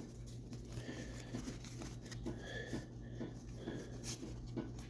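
Baseball card pack wrapper being torn open and crinkled, with soft scratchy clicks of cards being handled, over a low steady hum.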